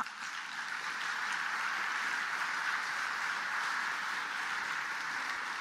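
Audience applauding: many people clapping steadily, swelling in the first second and starting to die away near the end.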